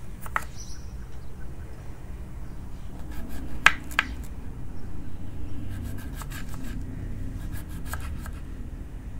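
Kitchen knife cutting vegetables on a wooden cutting board: scattered sharp taps, the two loudest a few seconds in, then quicker runs of chops, over a low steady hum.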